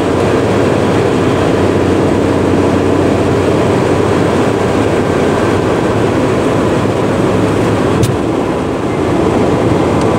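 Steady rumble and road noise of a moving vehicle, heard from on board, with a single sharp click about eight seconds in.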